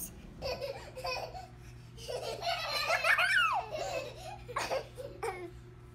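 A toddler laughing in several short bursts, with a high voice whose pitch rises and falls.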